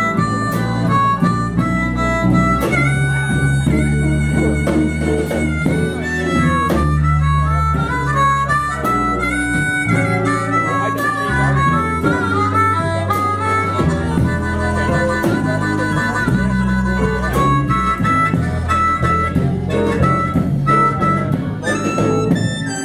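Live blues band playing an instrumental break: a harmonica carries the melody over bass and guitar backing.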